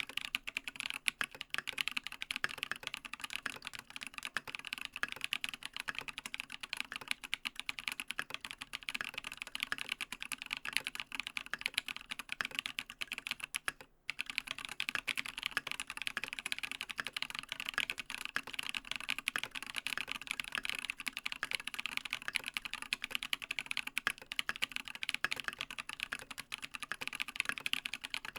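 Continuous fast typing on a TX87SE mechanical keyboard with Holy Panda tactile switches lubed with Tribosys 3204, a brass plate, no dampening, and Matt3o MT3 Dev/tty keycaps. It is a dense run of key clacks, broken by a short pause about halfway through.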